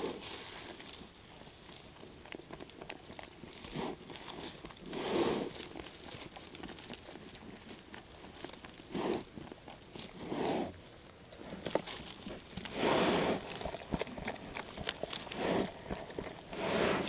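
Black bear nosing through dry leaf litter and twigs as it forages for springtails, making irregular rustling, crunching bursts every second or few seconds.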